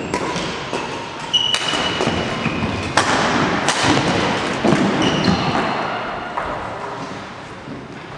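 Indoor sports play echoing in a large hall: a run of irregular thuds and knocks, with short high squeaks between them.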